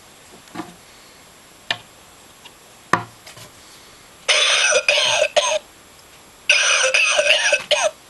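Lung-shaped novelty coughing ashtray playing its recorded cough: after a couple of faint clicks, two loud coughing fits, the first about a second long about halfway through, the second about a second and a half long near the end.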